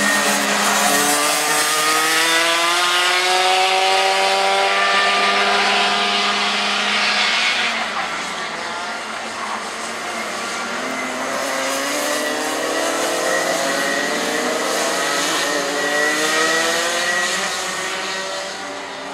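Several two-stroke racing kart engines running hard together, their overlapping notes repeatedly falling away and climbing again as the karts lap. Louder for the first half, then dropping back somewhat.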